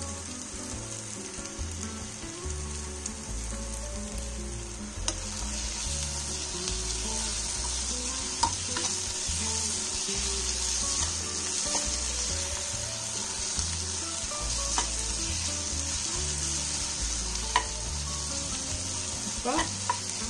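Onion-tomato masala sizzling in a nonstick frying pan while a spoon stirs it. The sizzle grows louder about five seconds in, with a few sharp clicks of the spoon against the pan.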